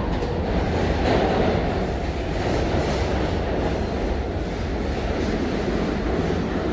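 New York City subway train running on the track beside the station platform: a steady, loud low noise.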